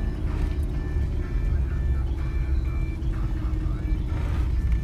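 Car driving on a dirt track, heard from inside the cabin: a steady low rumble of engine and tyres, with music playing over it in short held notes.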